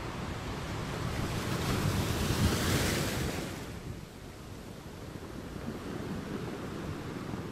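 Ocean waves breaking on a shore: one wave builds and crashes about two to three seconds in, then drains back into a lower, steady wash of surf.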